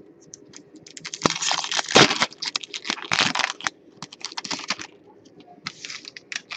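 Foil trading-card pack being torn open and crinkled by hand: a busy run of sharp crackles and rustles, loudest about two seconds in.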